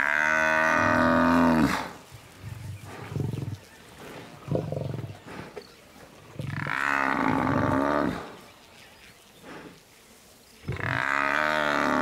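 A Cape buffalo cow bellowing in distress as lions hold her down: three long, loud bellows a few seconds apart, the last starting near the end. Her cry is the kind that can call the herd back to drive the lions off.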